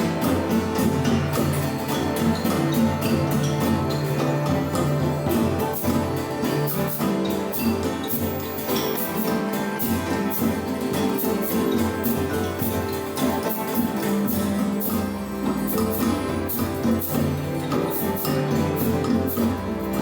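Freely played acoustic instrumental music: plucked strings over held low drone tones that shift pitch every few seconds, with many quick strikes or plucks on top.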